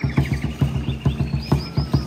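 A drum beating a fast, steady rhythm of about five or six strokes a second, with birds chirping and trilling over it.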